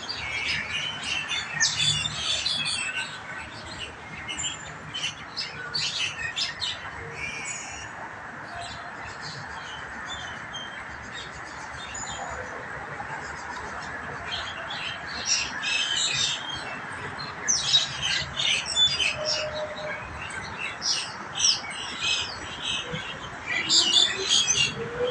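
A flock of mynas chattering and squawking over one another in a noisy, quarrelling chorus. It comes in bursts that swell and fade, loudest near the start, in the middle and near the end.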